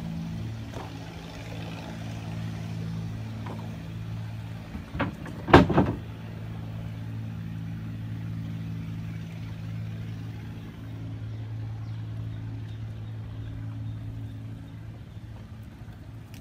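Small boat's engine running steadily at an even pitch. About five seconds in, a short burst of loud knocks cuts across it, the loudest thing heard.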